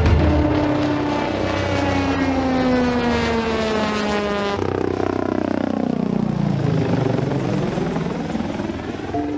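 Sikorsky S-97 Raider compound helicopter (coaxial rotors and a tail pusher propeller) flying past at high speed with the propeller engaged, its whine falling steadily in pitch as it passes. About halfway through, a second pass in helicopter mode with the pusher propeller disengaged for a reduced acoustic signature: the sound sweeps down and back up as the aircraft goes overhead.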